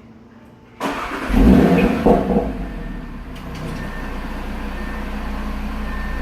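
2018 Audi RS3's turbocharged five-cylinder engine being remote-started: a brief crank about a second in, a flare of revs, then it settles into a steady idle.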